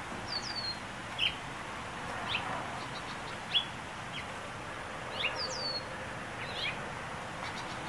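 Small birds chirping now and then: short, high, quick downward chirps about once a second, a few in quick clusters, over a steady faint background hiss.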